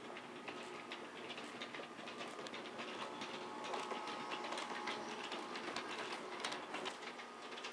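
Toy electric train running on its track: a faint steady clicking of the wheels over the rails with a thin motor whine, a little stronger about three to five seconds in as the locomotive passes close by.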